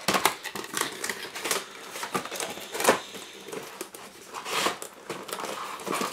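A cardboard product box being opened by hand: the end flap pulled open and the inner tray slid out, giving irregular taps, scrapes and rustles, with sharper knocks about a second and a half, three and four and a half seconds in.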